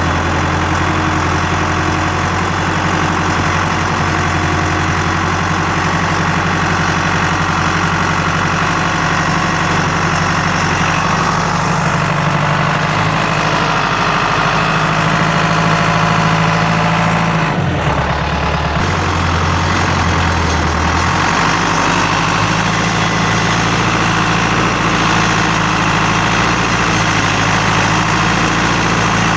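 Skidder engine running steadily; about eighteen seconds in, its pitch drops for roughly three seconds and then comes back up.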